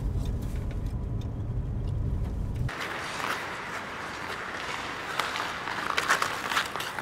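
Low steady rumble of a car's cabin while driving, which cuts off about two and a half seconds in. It gives way to a steady hiss with scattered clicks and knocks.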